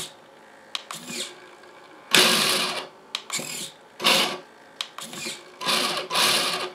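Electric motor and three-speed gearbox of a Tamiya High Lift RC truck whirring in several short bursts of throttle on the bench, with small clicks between bursts.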